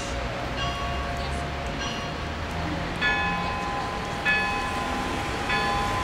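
Russian Orthodox church bells ringing a peal from the belfry: bells struck in turn about once every second and a bit, each note ringing on into the next, with a bigger, fuller strike about three seconds in. A low steady rumble runs underneath.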